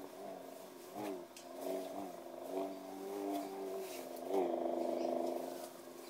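Prototype lightsaber's hum, synthesized in real time by the saber's own code and driven by its inertial motion sensor: a steady pitched drone whose pitch bends with each swing. The bends come about a second in and two seconds in, and again past four seconds, where the hum swells louder for over a second.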